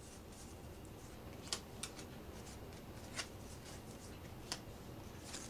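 Thin glossy children's playing cards handled on a pile on a wooden table: faint sliding, with about four light clicks as cards are picked up and laid down.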